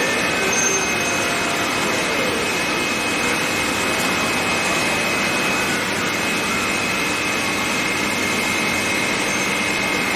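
CNC vertical lathes running on a production line: a steady machine-shop din with a constant high-pitched whine.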